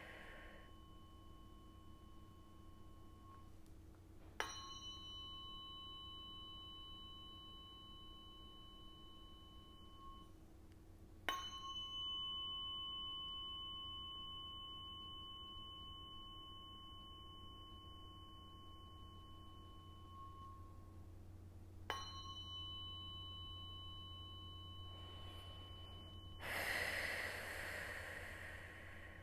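A tuning fork is struck three times, each a sharp tap followed by a clear, high ring that slowly fades; the second strike rings for about nine seconds. Near the end, a breath is heard.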